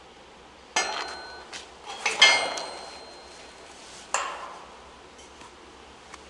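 Steel pipe bar and padlock of a locked gate being handled: three metallic clanks about a second, two seconds and four seconds in, the middle one the loudest and ringing briefly.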